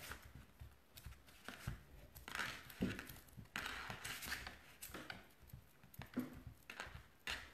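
Faint handling sounds as fingers in glove fingertips press and smooth sugarpaste into a silicone mould: scattered soft clicks and short rustles.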